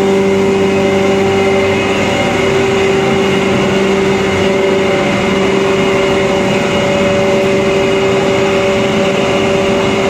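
Rice husk grinding machine running under power: a steady, loud motor and grinder hum with several constant tones over the noise of the grinder and its blower, holding one speed throughout.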